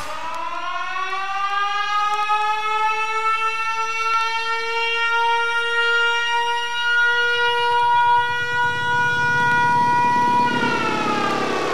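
A fire siren winds up slowly to a steady wail, holds it, then starts to wind down near the end. A low rumble comes in under it in the last few seconds.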